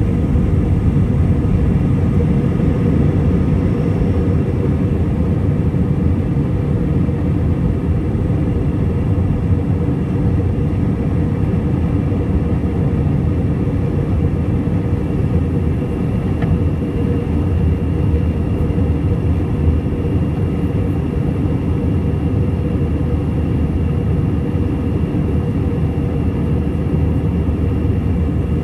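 Cabin noise of an Airbus A320-214 during takeoff and initial climb, heard from a seat over the wing: the CFM56 jet engines at high thrust make a loud, steady rumble with a faint high whine above it.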